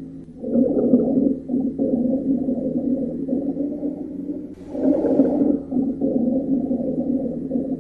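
Rhonchi heard through a stethoscope over the chest: low-pitched, snoring-like continuous sounds that swell and fade with each breath, one breath starting about half a second in and another about four and a half seconds in, the second with a brief hiss of airflow. Rhonchi are the sign of secretions or narrowing in the larger airways.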